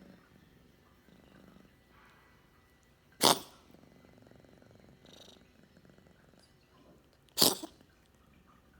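A cat sneezing twice, two short sharp bursts about four seconds apart, with faint purring between them.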